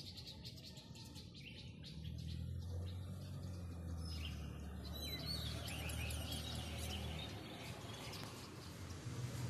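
Birds chirping and calling in many short, high notes, with a low steady hum underneath from about two seconds in until near the end.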